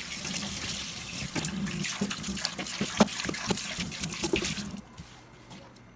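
Water from a kitchen tap running into a stainless-steel sink and splashing over hands being rinsed, with irregular splashes and drips. It drops away suddenly about five seconds in.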